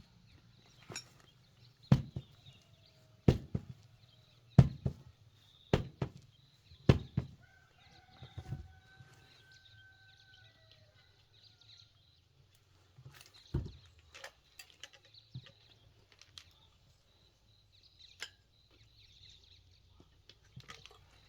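A run of five sharp knocks about a second apart. Then a rooster crows once for about three seconds, and a few fainter knocks come later.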